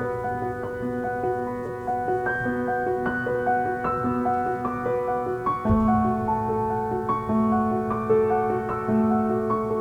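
Gentle background piano music, one note after another, with a lower bass note coming in about six seconds in.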